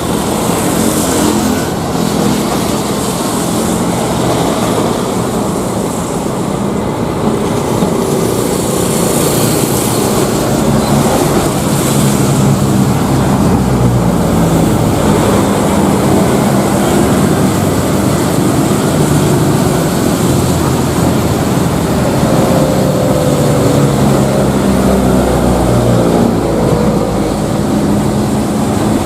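Jet airliner engines running loud and steady, a deep rumbling roar, with a faint falling whine near the end.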